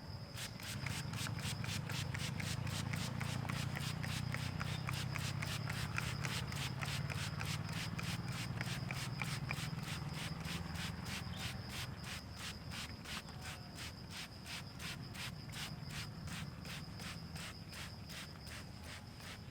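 Hands rubbing over a person's scalp and hair during a head massage, strongest over the first dozen seconds. Behind it, insects chirp in an even pulse of about four a second over a steady high tone.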